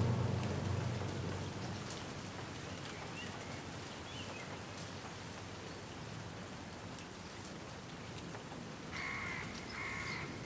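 A soft, steady hiss that fades over the first few seconds. Near the end comes a grey currawong's call: three short ringing notes, each about half a second.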